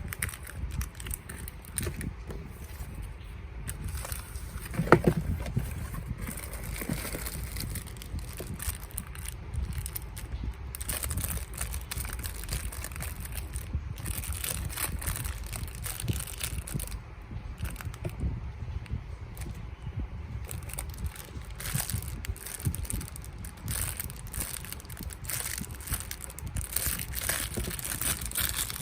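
Plastic packaging crinkling and crackling as it is handled and opened by hand, in many irregular small crackles, with one louder brief sound about five seconds in.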